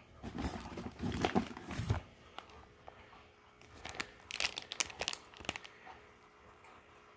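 Plastic fish-shipping bag crinkling as it is handled, in two bouts of rustling and crackling: one starting just after the start and lasting a couple of seconds, and another from about three and a half seconds in.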